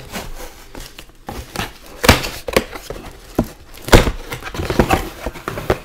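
Mailer packaging being torn open and handled by hand: irregular rustling and sharp ripping noises, the two loudest rips about two and four seconds in.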